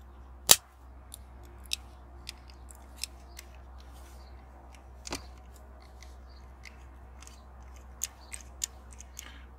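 Small clicks and taps of a diecast toy ambulance being handled as fingers fiddle with its roof light, which is not lighting. There is one sharp click about half a second in and another about five seconds in, with lighter ticks scattered between and a few more near the end.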